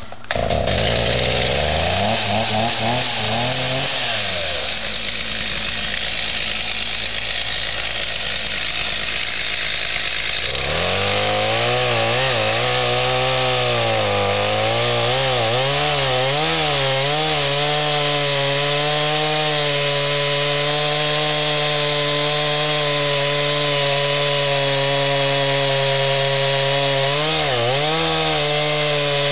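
Two-stroke chainsaw running and cutting into the trunk of a Douglas fir. The engine pitch dips and recovers as the chain bites during the first ten seconds or so, then holds a fairly steady note, with one brief dip near the end.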